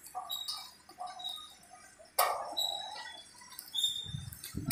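Clinks and knocks of stainless steel chair parts being handled during assembly, with a sharp loud knock about two seconds in and another near the end.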